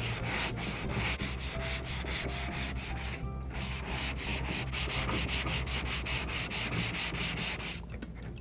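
A 220-grit sanding sponge rubbed back and forth by hand along the grain of a pine board, making fast, even scratchy strokes about four a second. There is a short break about three seconds in, and the sanding stops near the end. It is fine-grit finish sanding that works out shallow gouge marks.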